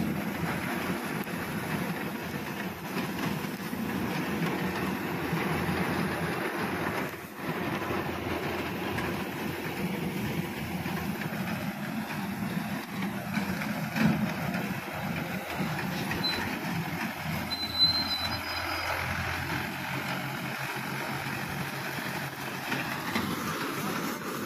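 Reaper binder running in standing wheat: a steady engine with the dense rattling clatter of the cutting and binding mechanism, and a couple of sharper knocks in the second half.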